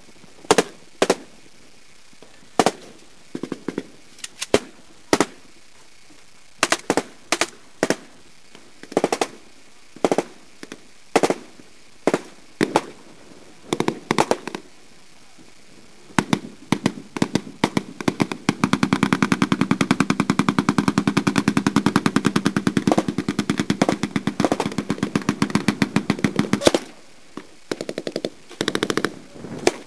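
Gunfire in a military exercise: single shots at uneven gaps, then, about halfway through, a long run of rapid automatic fire lasting some eight seconds, followed by a few more single shots.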